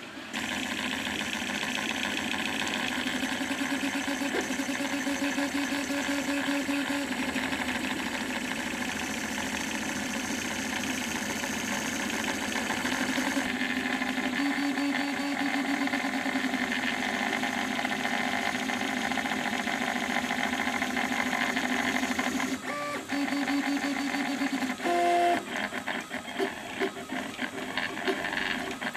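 Scratch-built RepRap Prusa i3 3D printer printing: its stepper motors whine in shifting pitches as the print head and bed move. The moves turn short and start-stop near the end.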